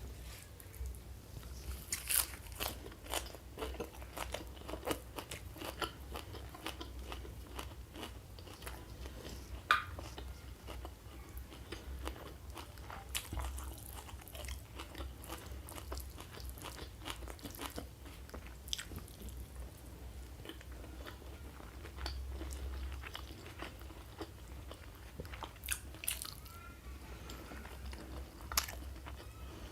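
Close-miked eating: irregular crunchy bites and chewing of crisp food, many sharp crackles scattered throughout.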